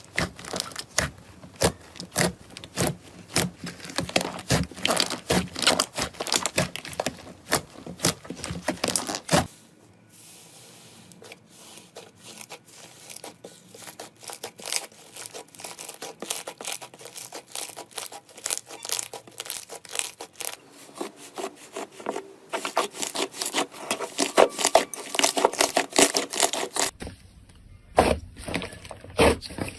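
Hands squeezing, poking and stretching slime, with dense crackling and popping clicks. The sound cuts to a softer, quieter squishing about ten seconds in, grows louder again, and changes once more near the end.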